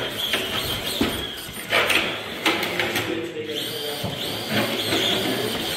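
Radio-controlled rock crawler's small electric motor and gearbox whining as it is throttled in short bursts, with several sharp clicks and knocks as it climbs over rock.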